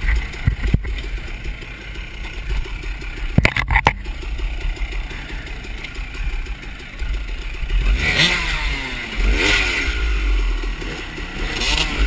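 Dirt bike engines running, with a couple of sharp knocks about three and a half seconds in. From about two-thirds of the way through, an engine revs up and down repeatedly.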